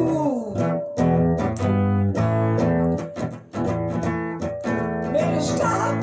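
Blonde Telecaster-style electric guitar playing a boogie rhythm, chords picked in a steady repeating pulse. A sung note slides down and trails off at the very start.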